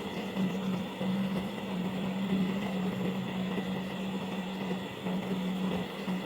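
A machine running steadily: a constant low hum over a noisy whir, with no starts or stops.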